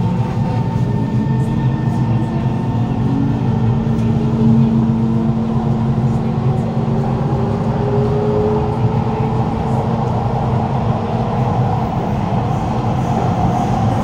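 Cabin sound of a Kawasaki C151 metro train with GTO-VVVF traction equipment running in a tunnel: a steady low rumble from the wheels and running gear, with faint motor-inverter tones slowly rising in pitch as the train picks up speed.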